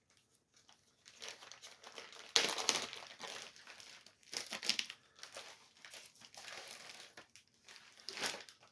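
Wrapping on a bundle of comic books crinkling and rustling as it is handled and opened, in irregular bursts, loudest about two and a half seconds in.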